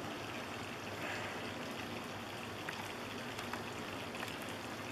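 Cornstarch-battered squirrel pieces flash frying in oil in a cast iron skillet: a steady sizzle with scattered faint pops and crackles.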